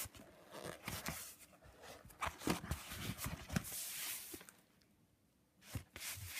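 Pages of a ring-binder junk journal being turned and handled: irregular rustling of paper and fabric pages with small knocks and clicks against the binder rings. The sounds stop for about a second shortly before the end, then start again with a click.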